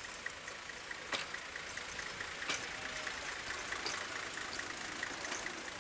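Nanbu Jukan Railway railbus's diesel engine running as it pulls away, with three sharp clacks about a second and a half apart. A fast, steady ticking of about four to five a second runs throughout.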